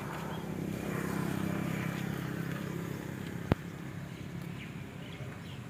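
A motor vehicle's engine running, its hum swelling and then fading as if passing, with a single sharp knock about three and a half seconds in.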